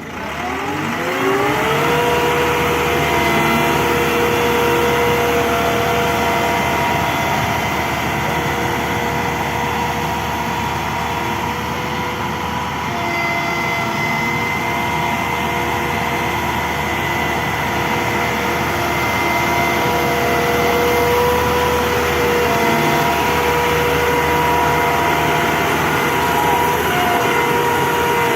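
Hydraulic pump from a JCB road roller being run under test: it spins up over the first two seconds, rising in pitch, then holds a loud, steady whine over a mechanical hum.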